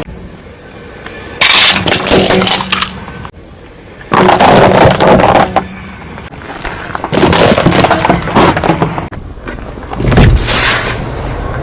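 Objects being crushed and breaking in four loud bouts of crunching and cracking, each a second or two long, with quieter stretches between them.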